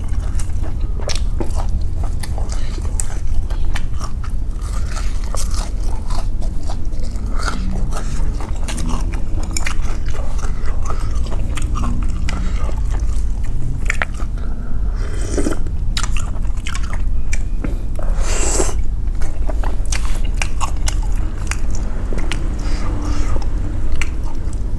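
Close-up eating sounds of pork nam tok noodle soup with instant noodles and pork balls: chewing with wet mouth clicks, and two longer slurps of noodles or broth, one about halfway through and one about three-quarters of the way in. A steady low hum runs underneath.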